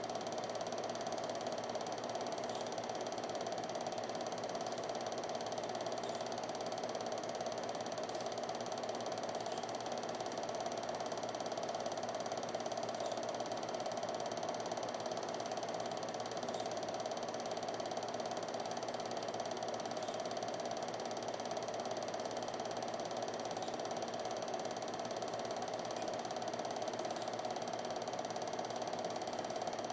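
Film projector running steadily: a continuous mechanical whirr and rattle from its film-advance mechanism.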